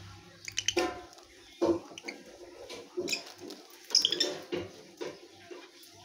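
Rosy-faced lovebirds feeding from a plate, with irregular short pecking and rustling sounds and a few brief high chirps. The loudest burst comes about four seconds in.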